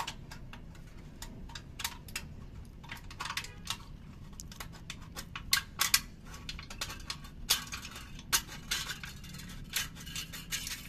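Hand scissors snipping thin metal from a green can. The snips and small metallic clinks come irregularly, some singly and some in short quick runs.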